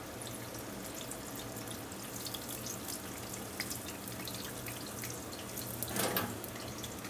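Egg rolls deep-frying in a pot of hot oil, the oil sizzling steadily with fine crackles; a short louder burst about six seconds in.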